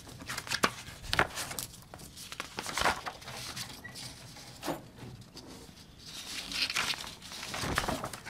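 Paper rustling with sharp, irregular knocks and scrapes as a man stands at a desk and handles his papers and a small wooden lectern, busiest near the end.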